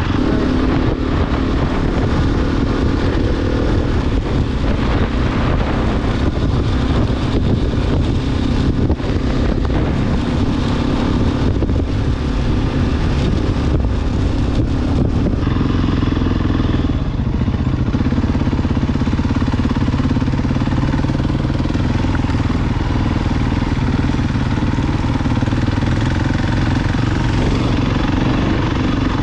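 KTM 690 Enduro R's single-cylinder four-stroke engine running steadily while riding, with a few short knocks in the middle stretch.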